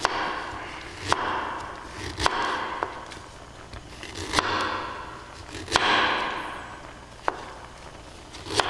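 Chef's knife mincing ginger on a wooden cutting board: single knocks of the blade on the board, about one a second and unevenly spaced.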